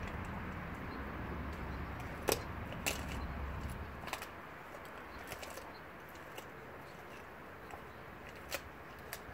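A dog crunching and gnawing on a frozen raw tilapia, with scattered sharp crunches and clicks as its teeth work through the frozen fish. A low background rumble fades about four seconds in.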